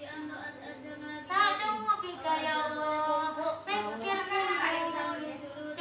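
Girls' voices singing a chanted melody with held, wavering notes, louder from about a second in: the sung recitation of nahwu (Arabic grammar) verses practised in a pesantren lesson.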